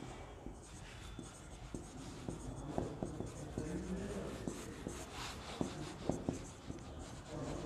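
Whiteboard marker writing on a whiteboard: a run of short squeaks and taps as the tip strokes out letters and underlines a word.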